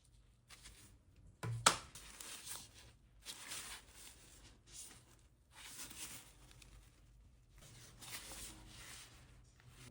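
Hands handling a phone's cardboard and paper packaging: short bursts of rustling and sliding, with one sharp click about one and a half seconds in.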